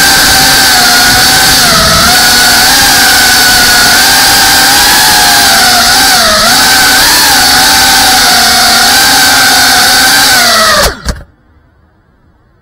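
FPV quadcopter's brushless motors and propellers whining as heard from the drone's onboard camera, the pitch dipping and rising with the throttle a few times. The whine cuts off abruptly near the end as the drone lands and its motors stop.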